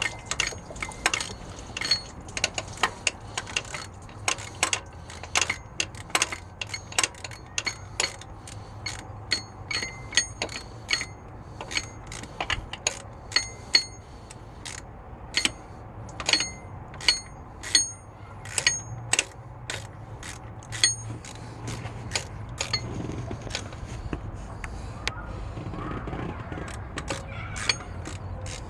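Irregular sharp metallic clicks and ticks, about one or two a second, many ringing briefly at the same high pitch, over a low steady hum that grows slightly louder near the end.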